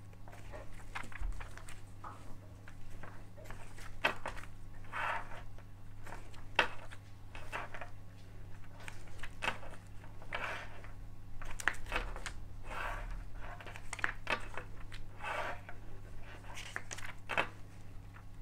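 Pages of a paper booklet being turned and pressed flat on a wooden table: an irregular run of short paper rustles and flicks over a low steady hum.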